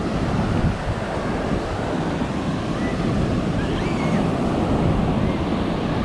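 Ocean surf washing onto the beach, mixed with wind buffeting the microphone: a steady rush without let-up.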